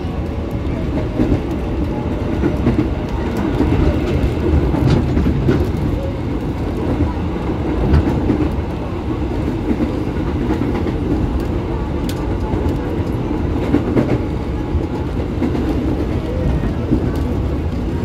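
KRL Commuterline electric train running at speed, heard from inside the carriage: a steady rumble of wheels on rail, with a few sharp clicks along the way.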